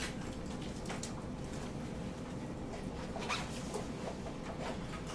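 Several short scratchy rustles, a few irregular ones over about five seconds, over a steady low room hum with a faint constant tone.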